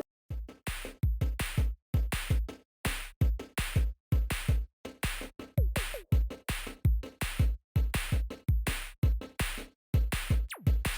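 Background electronic music with a steady drum-machine beat of deep kicks and sharp hits.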